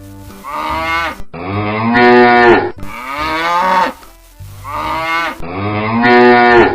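Cow mooing: several drawn-out moos in a row, each about a second long with short breaks between them.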